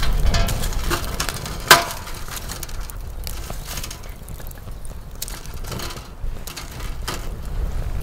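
Split firewood logs knocking as they are laid by hand into a burning stainless-steel fire pit, with the sharpest knock about two seconds in and a few lighter ones later, over the crackle of the wood fire.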